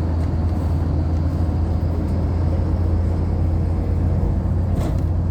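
Steady low rumble of a city bus's engine and running gear heard from inside the cabin, with a brief rattle or knock near the end.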